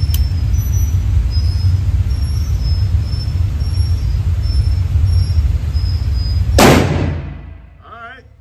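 A single .44 Magnum revolver shot about two-thirds of the way through, the loudest sound, ringing on briefly in the indoor range. Before it, a steady low rumble.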